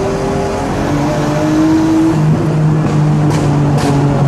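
Straight-piped Nissan RB25DET turbo straight-six running loud under way, heard from inside the car; its pitch drops about a second in, as on an upshift, then climbs slowly again. Two sharp cracks sound near the end.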